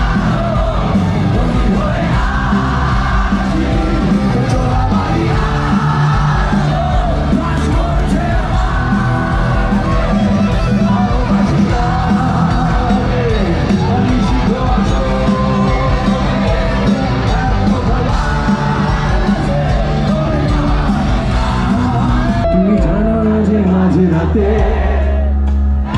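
Live band music with a singer, played loud through a concert PA and recorded from inside the crowd, with the audience yelling and cheering along. About three-quarters of the way through it cuts abruptly to a passage with deeper bass and less treble.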